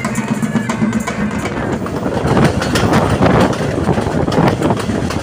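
A pipe band's bagpipes and drums playing, the pipes' steady drone under the tune, for the first second or two; then a passenger train running along the track, its noise heard from on board with the clatter of wheels over the rails.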